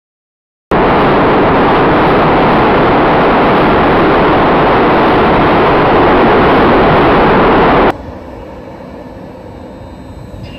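A loud, steady rushing noise starts suddenly under a second in and cuts off abruptly about eight seconds in, giving way to a much quieter underground-station hum.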